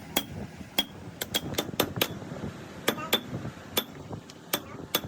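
Light metal-on-metal taps and clinks, about a dozen sharp strikes at an uneven pace, some in quick pairs, each with a brief ring, from hand tools working clutch or flywheel parts.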